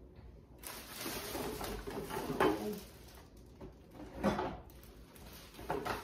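Plastic bag rustling as food containers are handled and dropped in, followed by a couple of short knocks from containers or refrigerator shelves.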